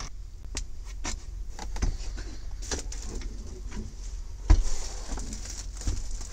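Knocks, taps and rustling from a truck cab's interior trim panel being handled and pressed into place, with one sharp knock about four and a half seconds in, over a steady low hum.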